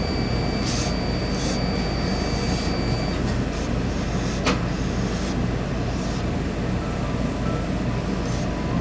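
Hose-fed tailor's steam iron pressing a suit jacket: a few short hisses of steam, the first about a second in, over a steady low machine hum. A single sharp click about four and a half seconds in.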